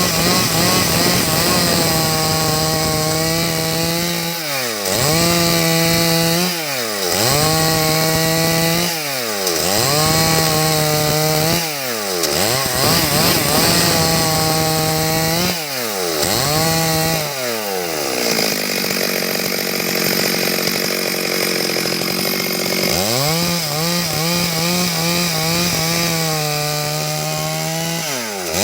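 Stihl MS 382 two-stroke chainsaw cutting wood at high revs. The engine pitch drops and climbs back every two to three seconds. A little past the middle it runs slower and quieter for about five seconds, then revs up again.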